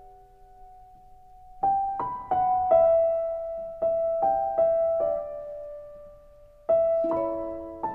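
Slow background piano music: single notes and small chords struck one at a time and left to ring. A held note fades out over the first second and a half before the playing picks up again.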